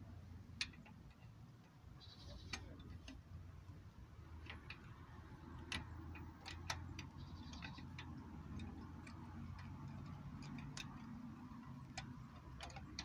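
Scattered metallic clicks and clinks of a socket wrench working on a car's wheel bolts, irregular and a few seconds apart, over a low steady hum.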